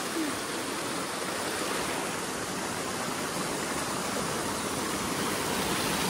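Small mountain stream running and splashing over rocks in a steady wash of water noise.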